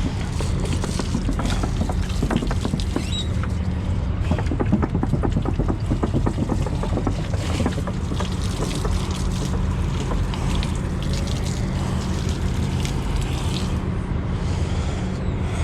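Truck diesel engine idling steadily, with a quick run of clicks and rattles over the first half.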